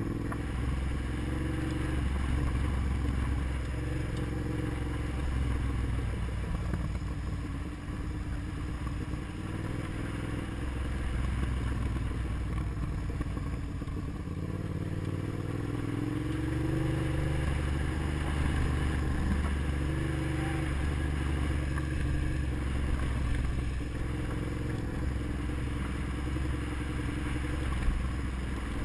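Motorcycle engine running under way on a dirt road, its pitch rising and falling as the rider changes speed.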